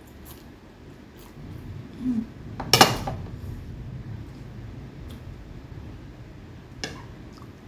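A ceramic dinner plate set down on a wooden table with one sharp clack about three seconds in, then a fainter click near the end.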